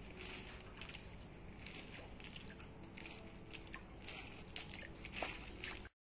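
Light, irregular splashes and slurps of fish breaking a pond's surface, many short sloshes at uneven intervals over a low steady rumble.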